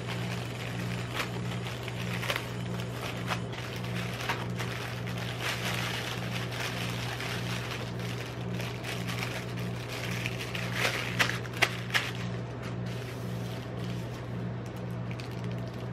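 Plastic candy-bar wrappers crinkling and rustling as a Cadbury Twirl multipack bag is opened and its individually wrapped bars are tipped out. A few sharp taps come about eleven seconds in as bars land on the steel ice-cream roll pan. A steady low hum from the cold plate's refrigeration unit runs underneath.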